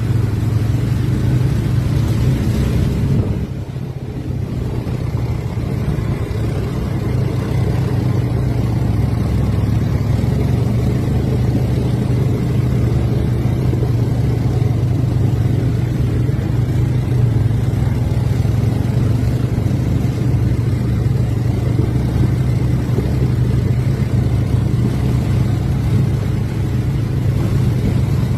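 Quad bike (ATV) engine running steadily under way, with a brief drop in level about three and a half seconds in before it picks up again.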